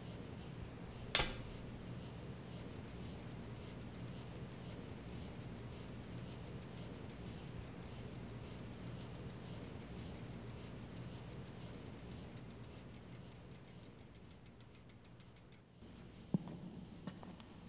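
Bicycle freewheel ticking, the clicks coming faster and faster and then stopping suddenly, after a single sharp click about a second in. Then faint room tone with a few soft knocks.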